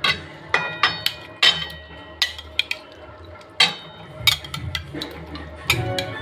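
Metal spatula striking and scraping a cooking pan while stirring chicken in its masala: about a dozen sharp, ringing clinks at an irregular pace, over quiet background music.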